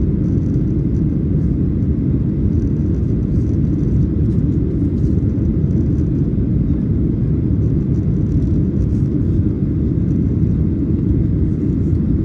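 Steady low rumble of a Boeing 737-800 climbing after takeoff, its engines and airflow.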